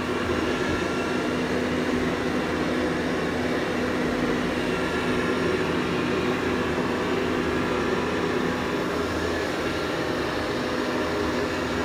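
Dreame L20 Ultra robot vacuum-mop running as it vacuums and mops the floor: a steady motor hum with several steady tones.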